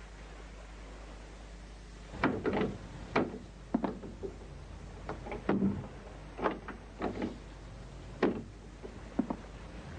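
Faint steady room hum, then from about two seconds in a string of about a dozen irregular knocks and clicks.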